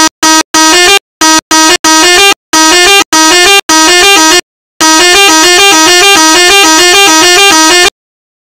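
Electronic horn sound of a police siren simulator app, a harsh buzzing tone sounded in a string of short blasts, then held for one long blast of about three seconds near the end.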